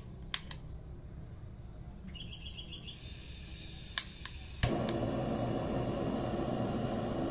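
Butane blow torch on a gas canister: a few clicks of the trigger igniter, then it lights with a click a little over halfway through and burns with a steady hiss.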